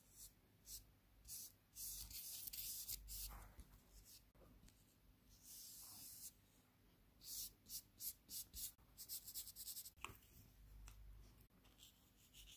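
Paintbrush bristles scratching and dabbing thick paint onto textured watercolour paper: a series of short scratchy strokes, a few longer ones about two and six seconds in, and a quick run of them from about seven to ten seconds.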